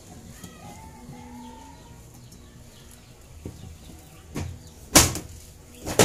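Sharp clacks from hands handling parts of a washing machine's spin dryer: three in the second half, the loudest about five seconds in.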